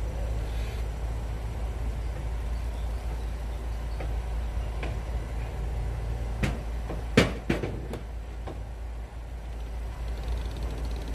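Steady low rumble of harbour background, with a few sharp knocks a little past the middle, one much louder than the rest.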